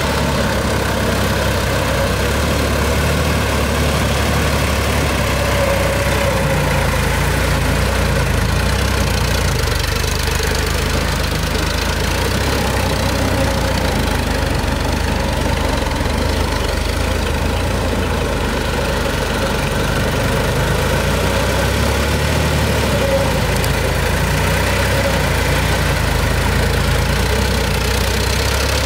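Sonalika Worldtrac 60 RX tractor's diesel engine running steadily as it pulls a rotary tiller through flooded paddy mud.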